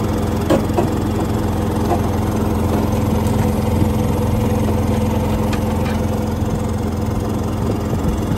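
Steady engine drone of an electrofishing boat running along, with a few light knocks over the top.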